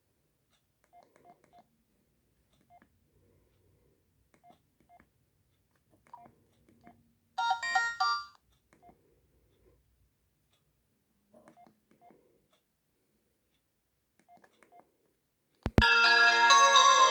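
Alcatel OneTouch E801 mobile phone: faint short keypad beeps and clicks as keys are pressed, a brief burst of ringtone melody about halfway through, then a click and a polyphonic ringtone starting to play loudly near the end.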